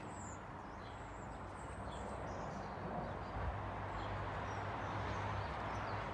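Steady outdoor background noise with faint, scattered high bird chirps; a low hum comes in about halfway through.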